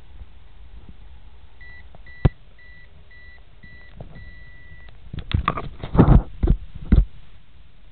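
Microwave oven beeping: a run of about five short, evenly spaced beeps, then one longer beep. A cluster of loud knocks and thumps follows near the end.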